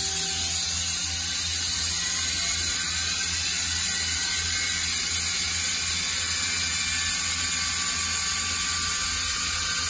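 Mazak QTN-200MY CNC turning center running its spindle at a steady commanded speed: an even motor hum with a whine over it, with no cutting heard.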